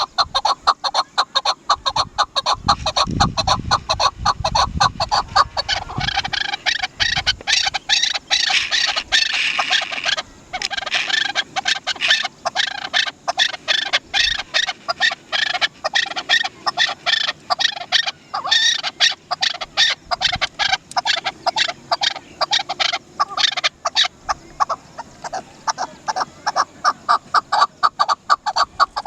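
Chukar partridge calling: a long, rapid run of repeated clucking 'chuk-chuk-chukar' notes.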